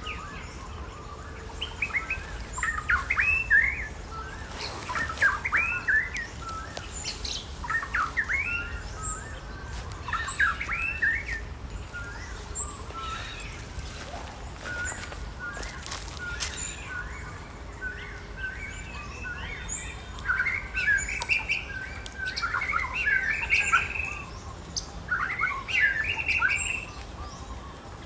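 Animal calls: short, high chirping and squeaking calls that come in clusters every second or two, over a steady low background rumble.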